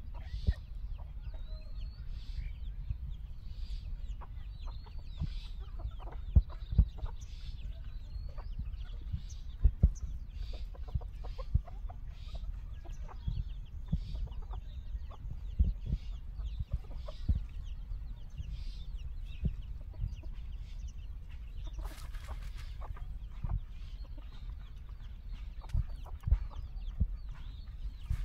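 Birds chirping in many short, repeated calls over a steady low rumble, with scattered dull thumps and a brief rush of noise about two-thirds of the way through.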